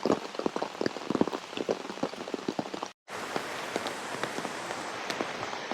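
Heavy rain falling hard, with many loud single drops striking close by over a steady wash of rain. About halfway through it cuts off for a moment, then goes on as a more even rain.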